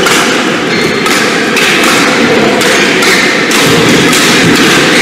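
Indoor badminton hall ambience: a steady noisy din with repeated dull thuds, about one a second.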